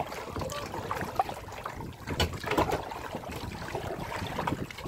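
Water lapping and splashing against a plastic sit-on-top kayak's hull as it is paddled, with scattered irregular splashes.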